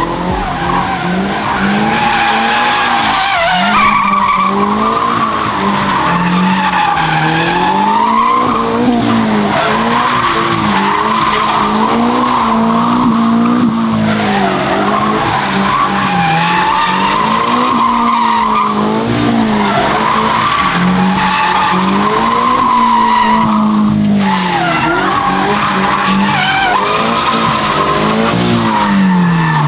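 A car being drifted: the engine revs keep rising and falling while the tyres squeal steadily, and the revs drop away near the end.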